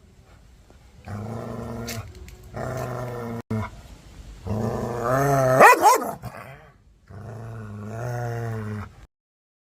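Dog growling aggressively in four long, low growls. The third rises into a sharp, higher-pitched bark about six seconds in, the loudest moment. The sound cuts off about nine seconds in.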